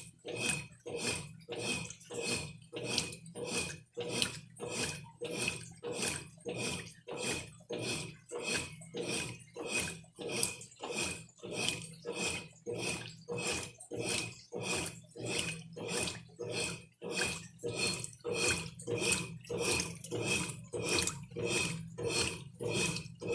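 Brastemp Ative 11 kg top-loading washing machine agitating a very full load without turbo, water sloshing back and forth with each stroke at a steady two strokes a second.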